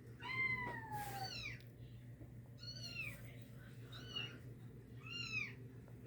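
A cat meowing repeatedly: one long falling meow near the start, then about five shorter, high arched meows.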